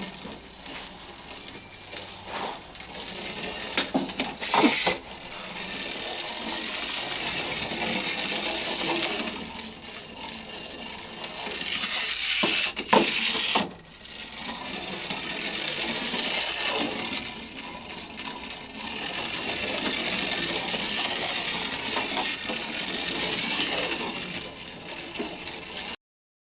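Clockwork spring motor of a 1950s Schuco Moto Drill tin toy motorcycle running after being key-wound, a high whirring buzz that comes in several runs. Louder clicks and knocks come about four seconds in and again about thirteen seconds in.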